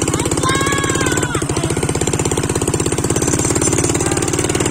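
Small ATV engine running steadily with a rapid, even beat.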